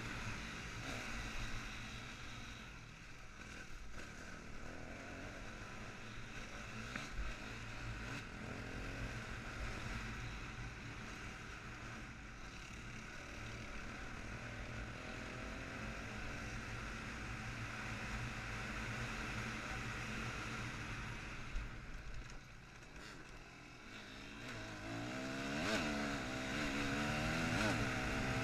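Yamaha WR250F enduro motorcycle's single-cylinder four-stroke engine running under way, revving up and down as it is ridden. The revs drop for a moment a little after two-thirds through, then climb and fall several times near the end, where the engine is loudest.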